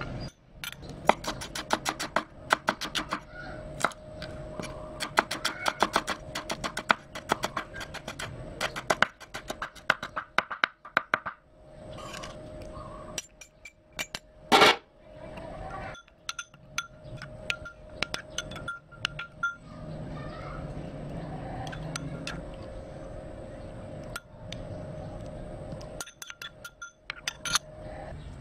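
A metal spoon clinks against a ceramic bowl while stirring a thin chili dipping sauce. For the first ten seconds or so the clinks come quickly, several a second. One louder knock comes about halfway through, and the clinks after it are sparser.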